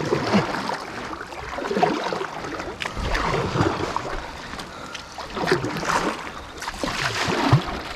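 Kayak paddles dipping and splashing in river water, in uneven strokes every second or two.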